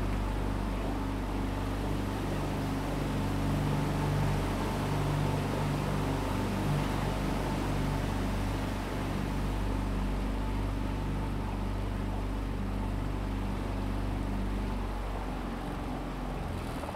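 A small motorboat's engine running steadily with a low hum, easing off slightly near the end.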